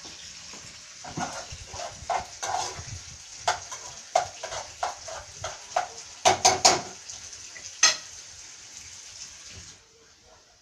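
Minced meat frying in a pan for a ragù, a steady sizzle, with a utensil knocking and scraping against the pan as it is stirred; a quick run of loud clatters comes a little past halfway and one more a second later. The sizzle drops away near the end.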